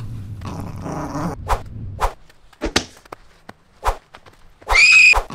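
Soft taps and thuds of juggling beanbag balls being caught and dropped, then, near the end, a short high-pitched dog-like yelp that rises and falls.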